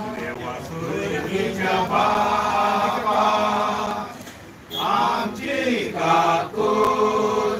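A group of voices chanting a prayer together in unison, with long held notes and a brief pause about four and a half seconds in.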